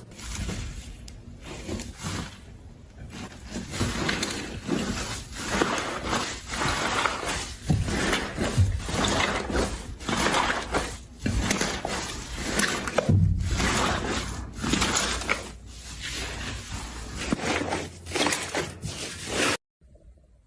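Slime being squished and pressed by hand, a dense stream of irregular clicks, pops and wet squelches. It cuts off abruptly near the end.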